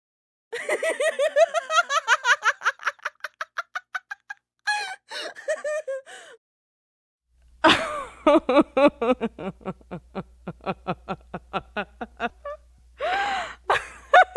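Women laughing in several separate takes, one after another: a long run of quick "ha-ha" pulses that falls in pitch, a shorter laugh, a pause, then another long laughing fit with a low hum underneath, and a sharp in-breath before more laughter near the end.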